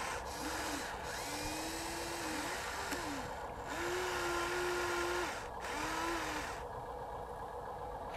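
Electric motors of a Huina RC excavator whining in about five short spurts as the boom and bucket move, each rising in pitch, holding, then dropping away. Two of the whines last over a second.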